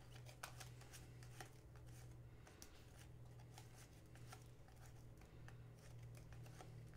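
Faint ticks and slides of glossy hockey trading cards being flipped one at a time off a hand-held stack, over a low steady hum.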